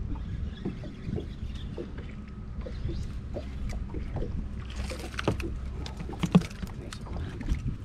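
Small boat on the water: water lapping and knocking against the hull over a steady low rumble, with scattered clicks and knocks that grow busier in the second half and one sharper knock about six seconds in.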